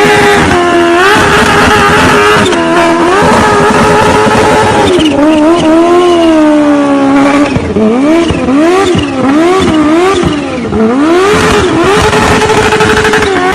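Motorcycle engine running at high revs, its pitch holding steady and then sagging slowly midway. In the second half the throttle is blipped repeatedly, giving several quick rises and falls in pitch.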